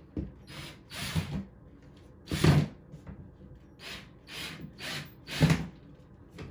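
Screws being driven through a drywall patch into a wooden 2x4, heard as a string of about ten short, noisy bursts, the loudest about two and a half and five and a half seconds in.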